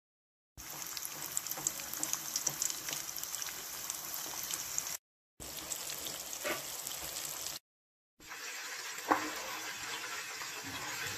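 Cornstarch-coated tofu cubes deep-frying in hot oil: a steady bubbling sizzle with fine crackles, broken twice by short silences. There is one sharp tap late on.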